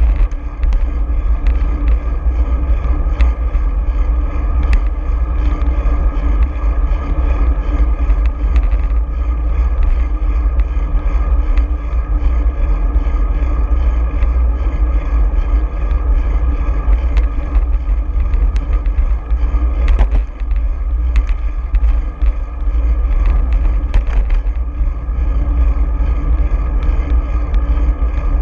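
Wind buffeting a bicycle-mounted action camera while riding, a heavy steady low rumble with road noise under it and a few sharp clicks and rattles along the way.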